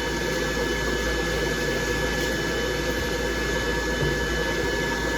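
Dryer blowing steadily while a dog is groomed: an even rush of air with a thin motor whine.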